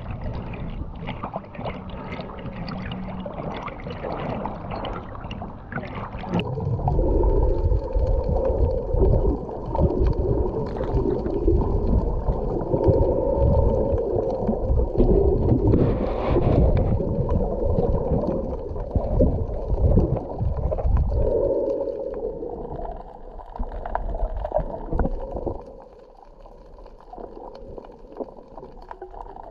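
Water sloshing and gurgling around an action camera at and just under the sea surface as a snorkeler swims, muffled when the camera is submerged. It drops much quieter near the end.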